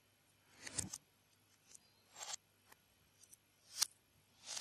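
Plastic Lego Technic parts being handled and fitted together: a scatter of faint clicks and brief rustles as pieces are picked from the pile and a gear and axle are pushed into a beam, the loudest click near the end.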